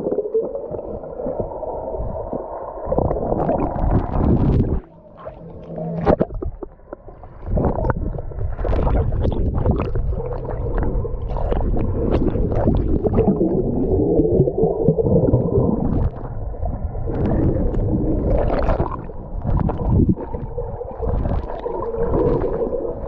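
Muffled rushing and gurgling of pool water heard through a submerged iPhone 11 Pro Max's microphone, with bubbling and the splashes of a swimmer's strokes. It goes quieter for a couple of seconds about five seconds in.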